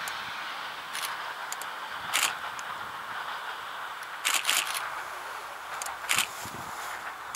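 Distant diesel railcar running away along the track, a steady rolling hiss that slowly fades. Several sharp crackling clicks close to the microphone stand out over it, about one, two, four and a half and six seconds in.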